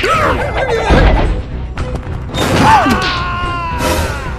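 Cartoon sound effects over background music: a heavy thud about a second in, then a long wavering creature cry that falls slowly in pitch near the end.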